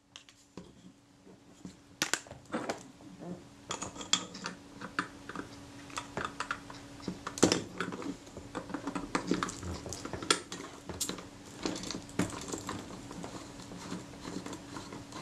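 Irregular small metal clicks and taps of a screwdriver working in a Kodak Retina IIa's metal body, unfastening the lens and shutter assembly. A faint steady hum runs underneath.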